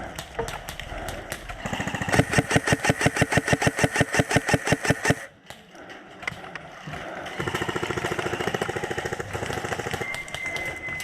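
Airsoft electric gun firing on full auto: a long burst of rapid, evenly spaced shots lasting about three seconds that cuts off suddenly, then after a pause a second, quieter burst.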